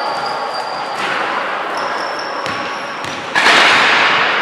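Basketball game in a gym: high squeaks on the court, then a sudden loud burst of noise a little over three seconds in that fades over about a second.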